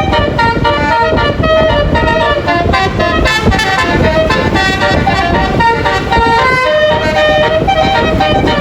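A bus's basuri telolet horn, a multi-note musical air horn, playing a melody of short held notes that change pitch every fraction of a second, over road and engine noise.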